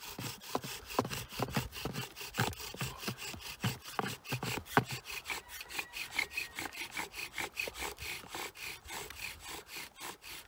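Bow drill at work: a sage spindle grinding in a sage hearth board, driven back and forth by the bow in a fast, even rhythm of wood-on-wood rubbing strokes. The friction is building hot wood dust (punk) toward a coal.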